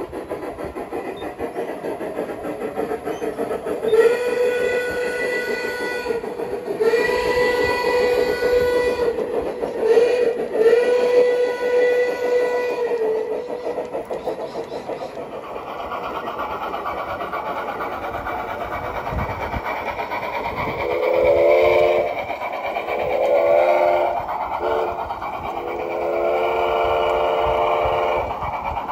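Large-scale model steam locomotive sound systems: a steam whistle sounds a long, long, short, long grade-crossing signal. Near the end a second, lower multi-tone whistle sounds the same pattern, all over a steady running chuff and wheel noise.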